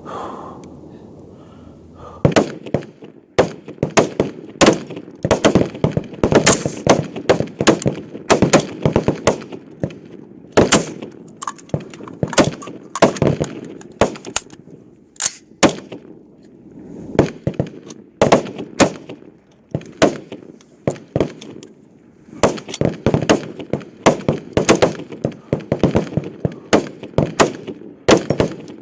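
Service rifles firing rapid fire along a rifle range firing line: many irregular, overlapping shots from several shooters, starting about two seconds in, with a couple of short lulls in the middle.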